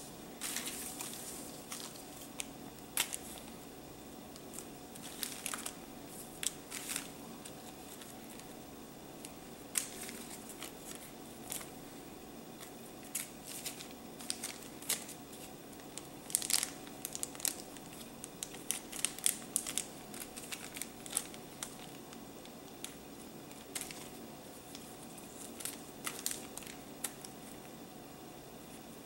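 Small clear plastic zip-lock bags crinkling as they are handled, in irregular crackles that are busiest about halfway through, over a steady low hum.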